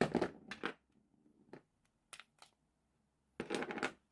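Scraping and clicking of a motor scooter key switch assembly handled by hand while the key is tried in the barrel, which will not turn because a small internal piece is broken. There is a scratchy burst at the start, a few light clicks in the middle and another scratchy burst near the end.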